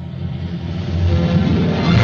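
Background film-score music fading in and building in loudness, with low sustained notes underneath.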